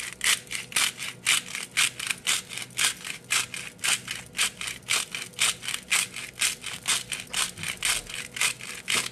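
Hand-twisted salt mill grinding smoked sea salt, a quick, even run of gritty crunching strokes, about four a second.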